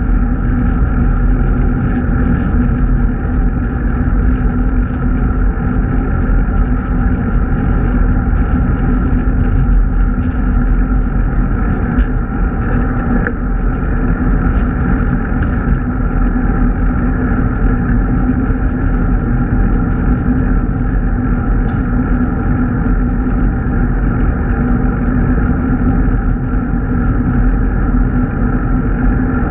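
Steady, loud wind rumble on a bicycle-mounted GoPro's microphone while riding, mixed with road noise.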